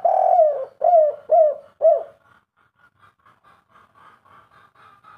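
Spotted dove cooing in its 'kuk 3' style: a longer coo opens the phrase and three short, evenly spaced 'kuk' notes close it, all ending about two seconds in. Faint higher twittering follows.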